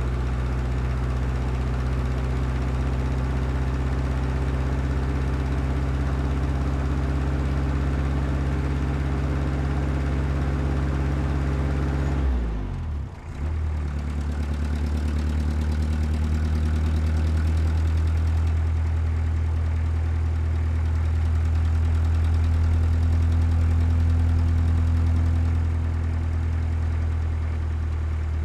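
Heavy diesel engine running steadily at low revs. About halfway through the pitch and level dip briefly before it settles into steady running again.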